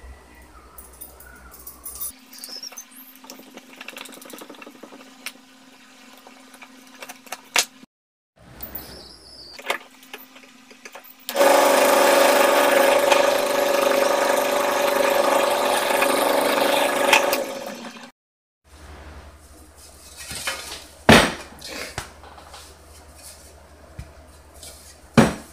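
Bench drill press running and drilling through a curved metal strap for about seven seconds, a steady loud whine with a strong held tone. Quieter handling sounds come before and after it, with two sharp knocks in the last few seconds.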